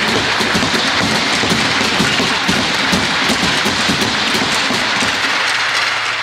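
Crowd applauding steadily with dense clapping that starts to die down near the end.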